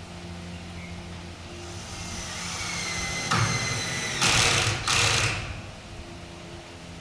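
A power tool working on wood: a motor whine builds up, then three short loud rasping cuts follow one after another.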